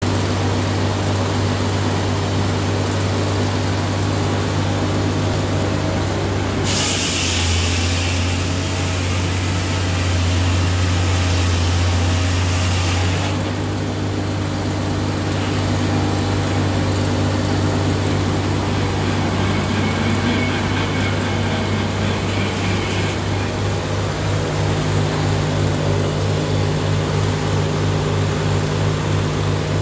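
Engine-driven circular sawmill running steadily, its big blade cutting through an oak log for about six seconds from around seven seconds in, a loud hissing whine over the engine hum. Over the last few seconds the engine note turns to an even pulsing beat.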